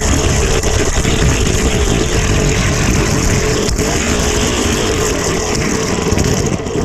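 Fast, dense rattling rumble of a camera-carrying car rolling along plastic Hot Wheels track, full of small clicks from the wheels and track joints, with a steady hum running through it.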